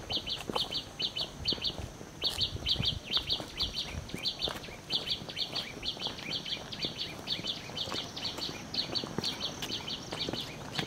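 A small bird calling over and over: quick clusters of high chirps repeated evenly about three times a second, with a short break about two seconds in. Soft low thuds of footsteps on a dirt path sit underneath.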